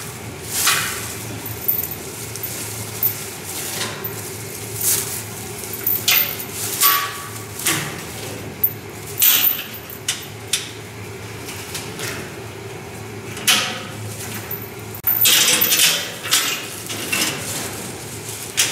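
Leafy tree branches rustling and knocking against a metal wire-mesh grille as they are pushed into place and fastened by hand, with irregular rattles and clinks of the mesh. The noises come in uneven bursts, thickest near the end.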